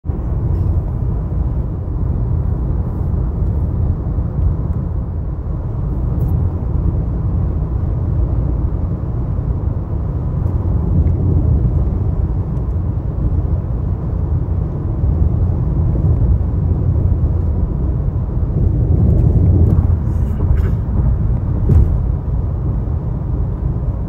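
Steady low rumble of road and engine noise inside a moving car's cabin, with a few faint ticks.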